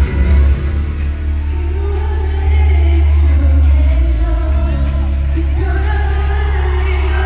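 Live K-pop performance: a singer's voice over a backing track through a large hall's sound system, with a heavy, steady bass.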